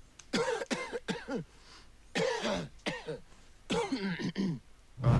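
A person coughing in three short bouts, each a quick run of several coughs, a little under two seconds apart. A brief low thump comes near the end.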